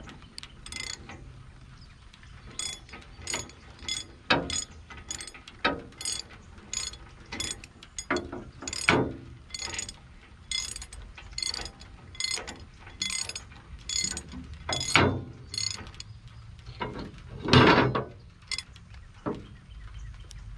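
Hand ratchet wrench turning a large socket on a rotary cutter blade bolt nut: a steady run of clicks, about two to three a second, with a few heavier knocks among them. A louder clunk comes near the end.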